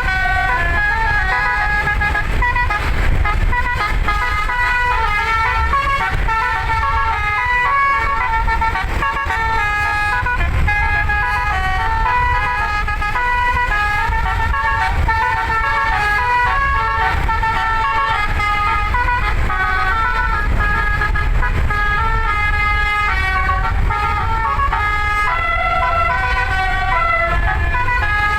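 An eleven-note telolet basuri musical air horn playing a melody, its pitched notes stepping quickly from one to the next, over a steady low rumble.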